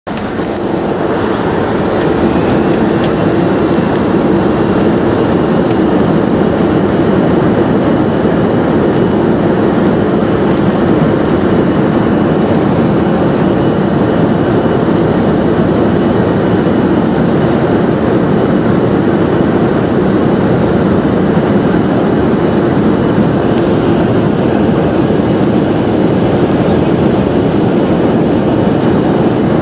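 Boeing 737-300 jet engines (CFM56) running at high power: a loud, steady rumble with a high whine that rises slightly in pitch over the first few seconds and then holds steady.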